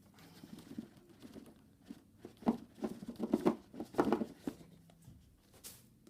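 Irregular taps, scrapes and rustles of a cardboard box and its packaging being handled as a tablet is lifted out, busiest in the middle, with a brief hiss near the end.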